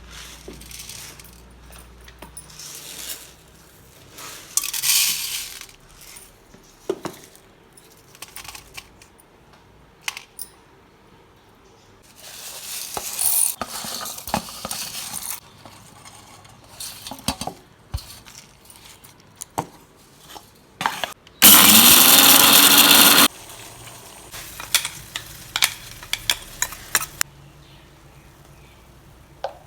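Kitchen utensils and steel vessels clinking and clattering as ingredients are handled, in scattered knocks and rattles. About three quarters of the way through, a loud steady burst of noise lasts about two seconds and cuts off suddenly.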